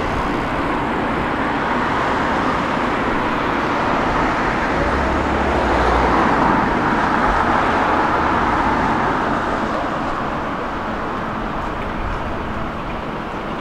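City street traffic: a steady wash of passing cars and buses, growing louder as a vehicle goes by about halfway through, then easing off.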